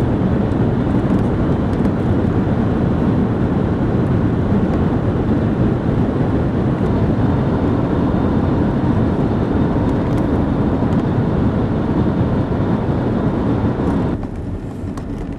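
Steady vehicle noise inside a van's cabin, a dense rumble-and-hiss with no distinct beat. It drops sharply to a quieter level about fourteen seconds in.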